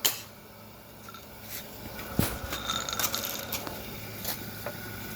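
Footsteps and the rattle of carried gear while walking: scattered light clicks, taps and scrapes, with a louder knock about two seconds in.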